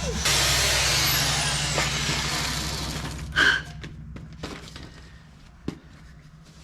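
Power drill running as it cleans out the parts, then winding down with a falling whine and fading over the first few seconds. It is followed by a few separate metal knocks.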